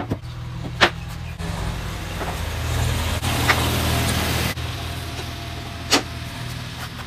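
Wooden cabinet panels knocked down onto a workbench, two sharp knocks about a second in and near the end, over a steady low mechanical hum that swells for a few seconds in the middle.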